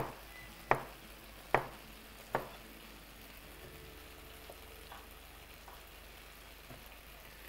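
Kitchen knife slicing a lemon into rings on a plastic cutting board: four sharp taps about a second apart, then a few fainter ones. A pan frying on low heat sizzles faintly underneath.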